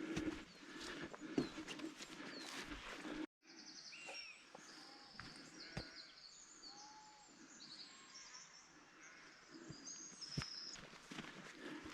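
Faint footsteps of a walker on a track for about three seconds, then a sudden break, after which small birds chirp and twitter in short, high notes. A few more footsteps come near the end.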